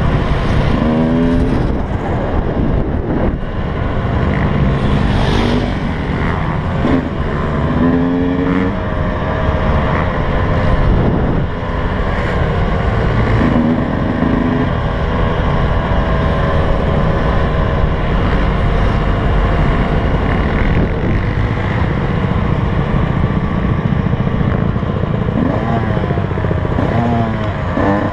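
Yamaha YZ125 two-stroke motocross engine being ridden at low to moderate speed, its pitch rising and falling several times with the throttle, heard from a helmet-mounted camera with rushing wind.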